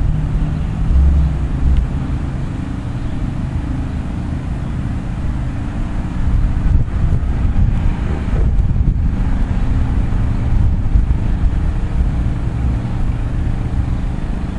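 Steady low rumble of a freight train of autorack cars rolling past, mixed with road vehicles driving by near the grade crossing.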